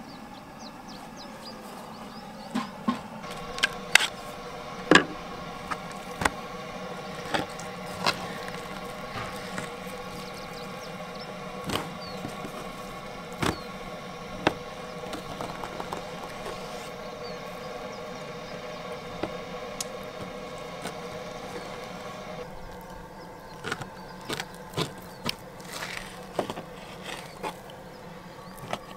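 Kitchen knife cutting raw meat on a wooden board, with sharp knocks as the blade strikes the board, irregular at first and coming as a quick series near the end.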